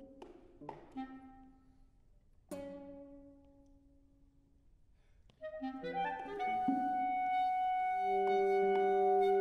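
Contemporary chamber music: a few sparse plucked classical guitar notes that ring and die away, a short near-quiet pause, then held notes from another instrument entering and building up as they overlap.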